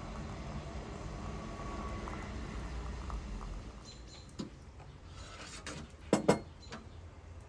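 Hot water pouring from a samovar's tap into a glass teapot of dried rosebuds, a steady splashing run that stops after about three and a half seconds. Then a few sharp clinks as the glass teapot is handled, two loud ones close together about six seconds in.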